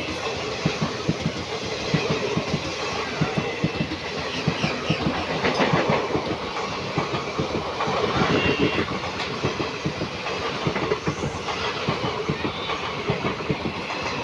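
Indian Railways passenger coaches passing close alongside, their wheels clattering rapidly over the rail joints over a steady rushing noise.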